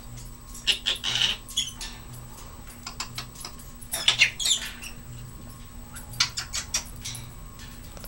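Timneh African grey parrot's beak and claws clicking and scraping on the wire bars of its cage top as it paces, in three bursts: about a second in, about four seconds in, and around six to seven seconds in.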